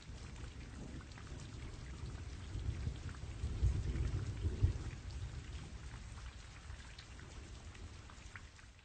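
Rain falling steadily with a low rumble of thunder that swells about midway and then eases.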